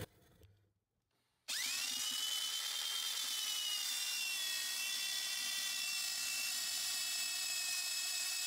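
Electric hand drill with a paddle mixer stirring cement mortar in a bucket. The motor starts suddenly about a second and a half in, its whine rising quickly to speed and then running steady.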